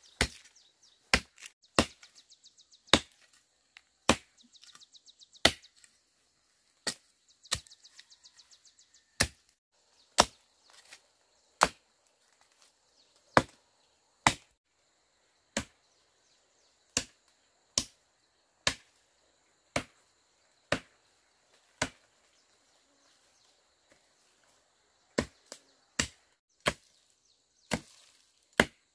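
Machete chopping into the base of a young tree trunk: sharp blade-on-wood strikes, about one a second, with a short pause about two-thirds of the way through.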